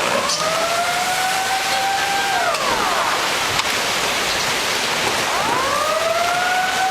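A wailing siren that climbs, holds and drops away twice, over a loud steady rush of water or heavy rain.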